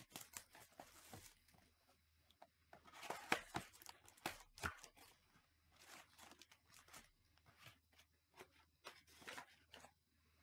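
Cardboard trading-card hobby box (Panini Select Baseball) being torn open by hand, with crackly tearing at the start and again, loudest, from about three to four and a half seconds in. Scattered light taps and rustles follow as the card packs are pulled out and set down.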